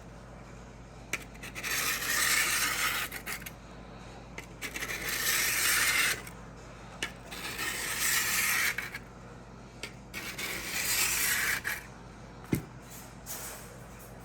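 Steel edge of an old drawknife stroked against a diamond sharpening plate, scraping in four long strokes about three seconds apart, with a light tap near the end. It is being sharpened to raise a burr on the back of the edge.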